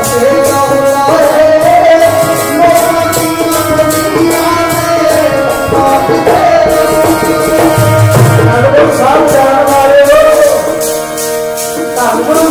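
Live Sikh kirtan: a sung devotional hymn over a harmonium's steady chords, with a hand drum beating a regular rhythm.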